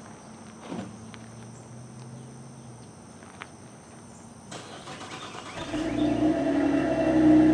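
2011 Chevrolet Traverse LTZ's 3.6 L V6 cold-starting through its stock dual-tip exhaust. It is quiet with a few faint clicks at first. The engine is cranked and catches about five and a half seconds in, then flares up to a loud fast idle near the end.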